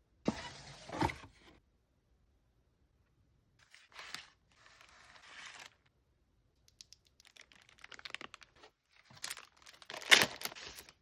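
Packaging being torn open and crinkled in four short bursts with pauses between, the loudest near the end.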